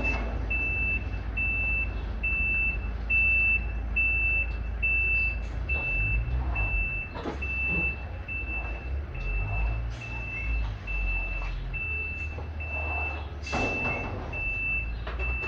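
Semi-trailer truck's reversing alarm beeping steadily, a single high tone about once a second, as the truck backs up to park. The diesel engine rumbles underneath and changes note about six seconds in, and a short hiss comes near the end.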